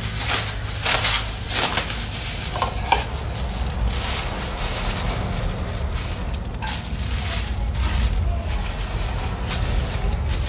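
Hot fish-and-fermented-fish broth being ladled from a pot into serving bowls: scraping and clinking of the ladle in the first few seconds, with a brief ringing clink about three seconds in, over a steady low rumble.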